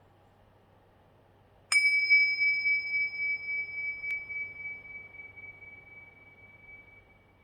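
Tibetan tingsha cymbals struck together once, a little under two seconds in, ringing with a clear high tone that fades slowly over several seconds. A faint tick sounds about two seconds after the strike.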